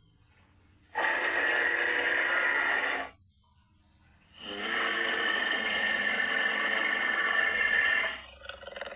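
Creature sound effect for a humanoid moray eel: two long, noisy calls, the first about two seconds and the second about three and a half, with a short fainter call near the end.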